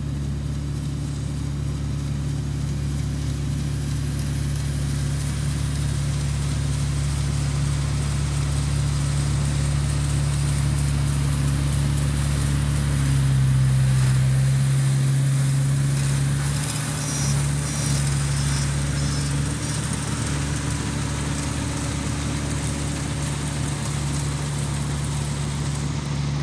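Farm machine engine running steadily, its note shifting briefly about halfway through.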